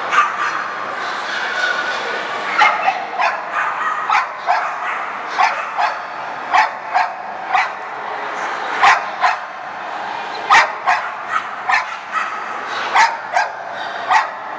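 A dog barking and yipping repeatedly, short sharp barks in quick irregular runs, over a steady background hubbub.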